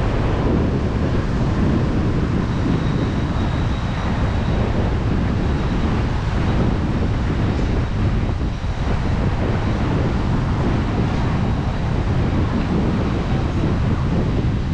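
Steady wind rumbling on the microphone, with ocean surf washing in the background.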